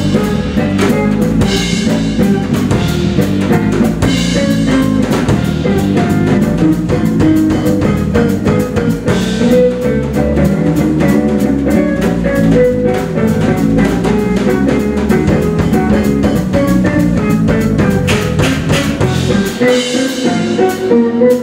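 Live jazz band playing, with a drum kit prominent over bass and guitar and held notes from alto and tenor saxophones. The low bass end drops away briefly near the end.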